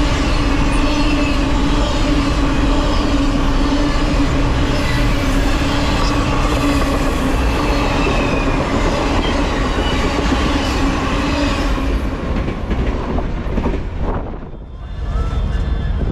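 Passenger cars of a passing train rushing by at speed: wheels rumbling and clattering over the rail joints with a steady hum. The sound fades away about twelve seconds in as the last car clears.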